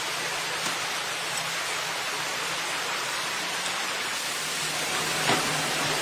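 Steady rushing water, with a faint low hum underneath and a single sharp knock about five seconds in.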